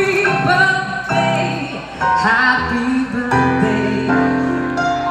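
A woman singing into a microphone over instrumental accompaniment, ending on a long held note near the end.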